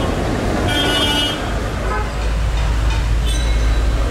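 Street traffic with a vehicle horn honking once about a second in. From about two seconds in, the steady low rumble of an old tram running, heard from inside the car.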